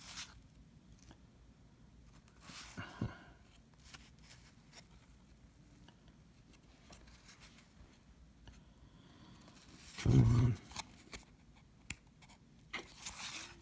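1990 Fleer basketball cards being handled and flipped through: soft cardboard rustling and scraping with a few sharp clicks. There are brief louder brushes about three seconds in, about ten seconds in, and near the end, with quiet gaps between.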